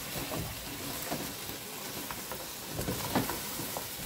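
Pepper and seasoning paste sizzling in a hot pot as a spoon stirs it, with a few light knocks and scrapes of the spoon against the pot.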